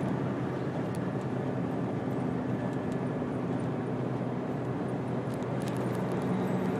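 Steady engine drone with a constant low hum over a haze of motion noise, as heard from inside a moving vehicle.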